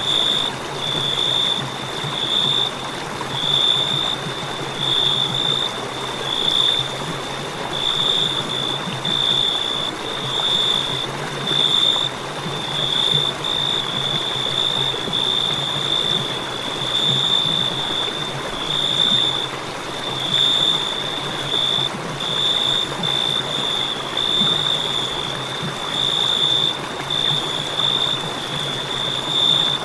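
Crickets chirping: a high, continuous trill that pulses in regular bursts, over a steady background hiss.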